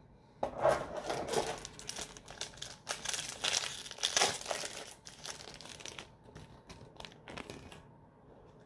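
Foil Yu-Gi-Oh booster pack crinkling in the hands as it is worked open, an irregular crackle of rustles that dies away after about six or seven seconds.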